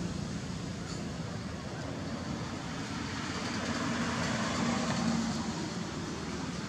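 Road traffic noise: a vehicle's low engine hum and tyre noise, swelling about four to five seconds in as it passes.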